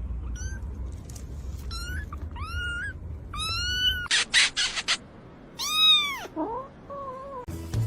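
A cat meowing again and again: several short, high-pitched meows that rise and fall in pitch, the loudest and longest about six seconds in, followed by a few lower, softer ones. About four seconds in there are four quick noisy bursts.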